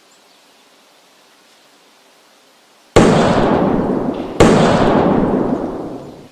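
Two loud gunshots about a second and a half apart, each cracking out suddenly and then dying away over a second or so.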